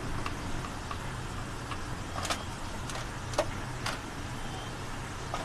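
Deep-fried potato fries being dropped into an aluminium foil container: a few light taps and crinkles of the foil, the sharpest three between about two and four seconds in, over a steady low background hum.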